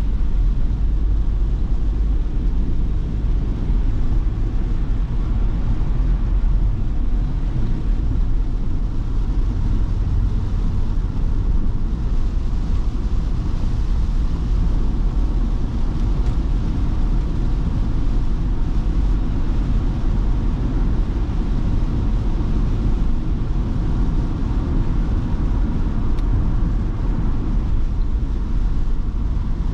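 Ford Transit Custom diesel van on the move: a steady low rumble of engine and road noise, with no change in pace.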